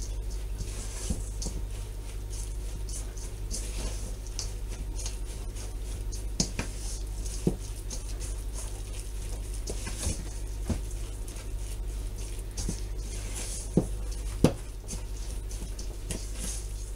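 A spoon stirring a thick, lumpy cake batter of flour, oats and grated carrot in a stainless steel bowl: soft scraping with a few sharp knocks of the spoon against the bowl's side.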